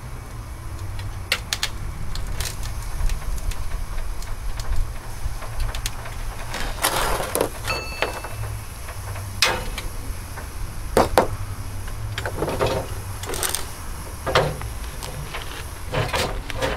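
Scattered clanks and knocks of hand tools and steel suspension parts as a rear coil spring is worked free of a Land Rover Discovery's lowered axle, with a brief ringing note about eight seconds in, over a steady low rumble.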